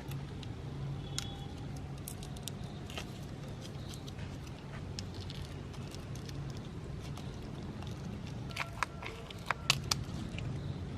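Meat grinder running: a steady low hum with scattered sharp clicks, and a cluster of louder clicks and knocks about nine seconds in.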